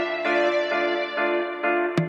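Background music: sustained chords that change about every half second, with no drum hits.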